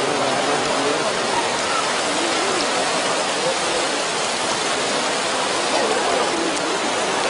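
Steady rain falling hard, an even hiss that holds at one level throughout, with faint voices underneath.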